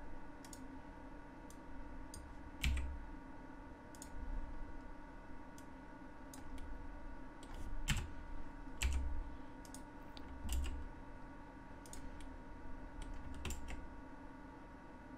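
Scattered single clicks of computer keyboard keys and a mouse, with a few soft low thumps, over a faint steady electrical hum.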